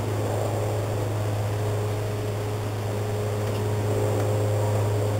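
A steady low hum with a fainter, higher steady tone above it, like a running appliance or fan motor, continuing without change.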